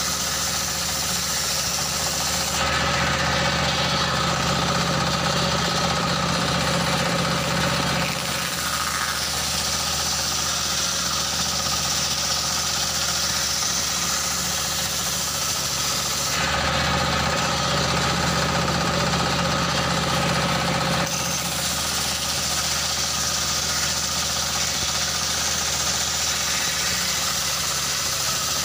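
Engine-driven circular sawmill (mesin serkel) ripping a log lengthwise: a stationary diesel engine runs steadily under load while the large circular blade cuts through the wood. The high-pitched part of the sound shifts a few times, about three, eight, sixteen and twenty-one seconds in.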